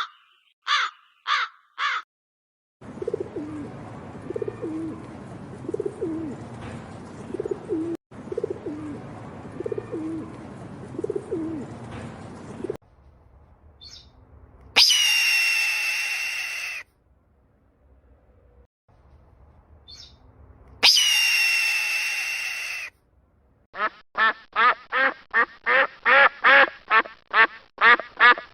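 A run of different bird calls. A crow caws a few times at the start, then low repeated calls sound over a steady hiss for about ten seconds. A loud shrill call comes twice, and near the end a duck quacks quickly, about four quacks a second.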